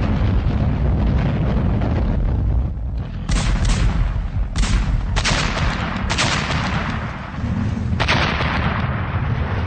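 Heavy gunfire and explosions over a continuous low rumble: about six sharp blasts, starting about three seconds in and spreading over the next five seconds, the later ones with long rumbling tails.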